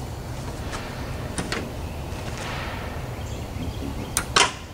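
A few light clicks, then near the end two sharp, ringing metallic clanks close together from the pickup's tailgate as it is worked off its hinges.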